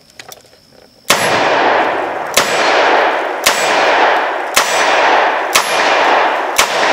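Smith & Wesson Model 686 .357 Magnum revolver with a 4-inch barrel fired six times, emptying its cylinder at about one shot a second with full-power .357 Magnum loads. Each sharp report is followed by a long echoing ring-out that carries on until the next shot.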